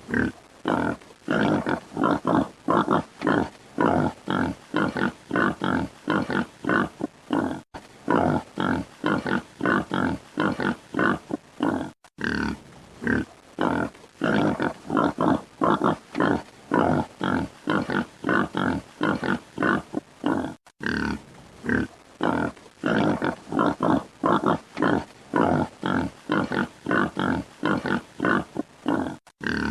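Wild boar grunting, a steady run of short, rough grunts at about two to three a second, with a few brief pauses.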